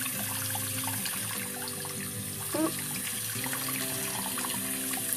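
Tap water running and splashing in a sink, with scattered small drips and splashes, as two parrotlets are bathed in warm water. A short rising squeak sounds about halfway through, over background music.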